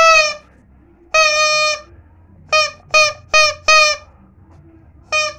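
Yellow rubber chicken toy squawking in short, steady, shrill honks: one at the start, a longer one about a second in, then four in quick succession, and another near the end.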